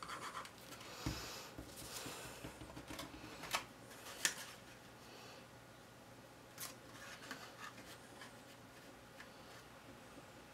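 Faint rustling and handling of cardstock as a paper panel is glued and pressed onto a small card box, with a dull tap about a second in and a few light clicks, the sharpest around four seconds in.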